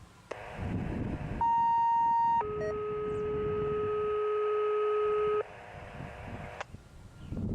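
Siren activation tones played over a radio. A click opens onto hiss, then a steady single tone sounds for about a second, followed by a steady two-note tone for about three seconds. The hiss cuts off with another click.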